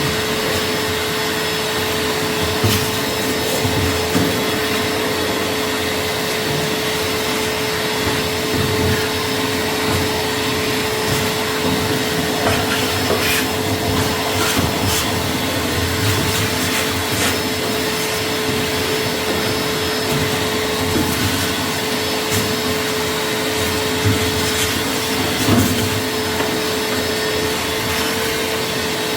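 A motor-driven appliance running steadily for the whole stretch, with a constant whine and scattered small clicks and rattles over a steady rushing noise.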